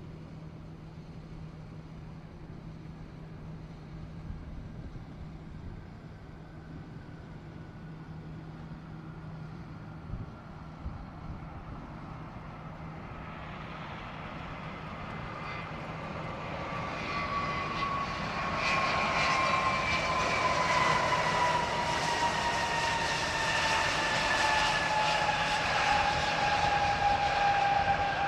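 Jet airliner engines: a faint low rumble with a steady hum, then from about halfway the engine noise grows louder, with a high whine that slowly falls in pitch.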